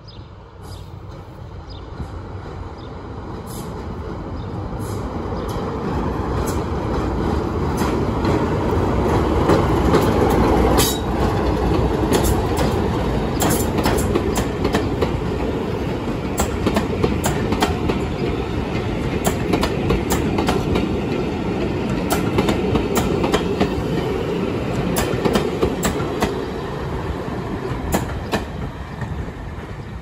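Passenger coaches rolling slowly past at close range, their wheels clicking irregularly over the rail joints over a steady rumble. The sound builds over the first several seconds and fades a little near the end.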